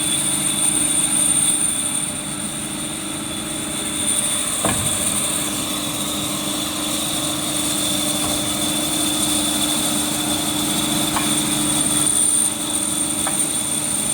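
Automatic wood-cutting band saw running, with its hydraulic oil pump on: a steady machine hum with a high whine over it. A single sharp knock comes about five seconds in.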